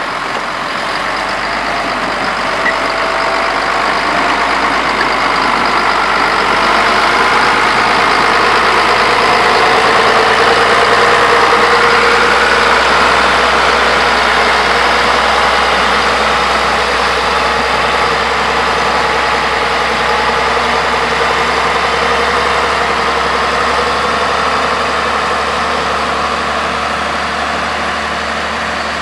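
Diesel engine of a heavy road-construction machine running steadily, growing louder toward the middle and easing off again near the end.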